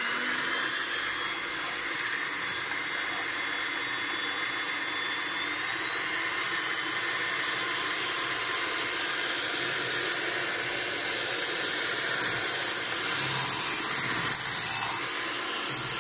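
Electric hand mixer running steadily, its twin beaters whipping egg whites to stiff peaks in a glass jug. The motor's whine rises slightly in pitch about six seconds in, and the sound grows louder and rougher near the end.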